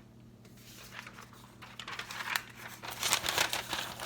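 Crinkling and rustling of handled packaging, faint at first and louder and denser from about halfway through.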